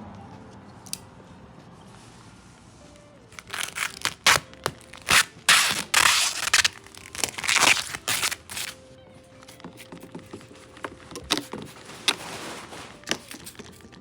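Plastic protective film being handled: bursts of crackling, tearing rustles, dense and loud for about five seconds from a few seconds in, then sparser and quieter crackles.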